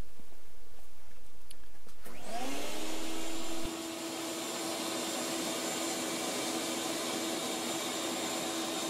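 Shop vac blowing air into a charcoal-fired furnace switches on about two seconds in. Its motor winds up in pitch and settles into a steady whine with a rush of air.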